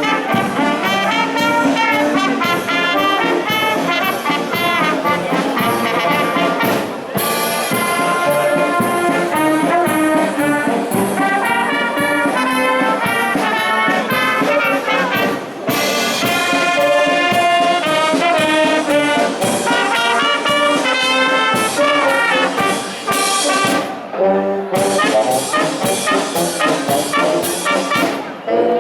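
Brass band playing a ceremonial march.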